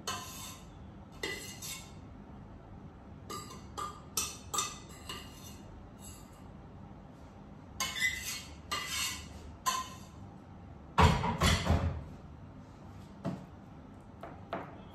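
A large stainless-steel pot and the utensil in it clinking and scraping in short, separate bursts. The loudest, heaviest clatter comes about eleven seconds in.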